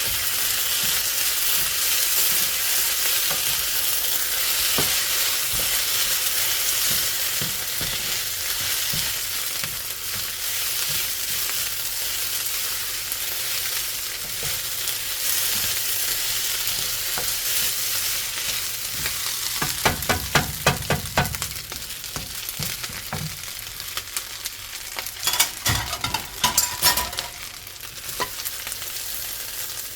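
Sausage and vegetable fried rice sizzling steadily as it is stir-fried. Two spells of quick clattering strikes break in, about two-thirds of the way through and again near the end.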